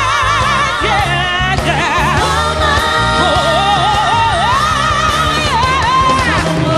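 Pop song with a singer holding long high notes with a wide vibrato over a steady backing beat.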